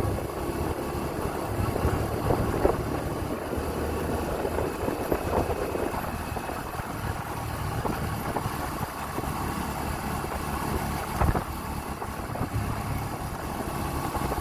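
Motorcycle running along the road, its engine a steady low rumble, with a sharp knock about eleven seconds in.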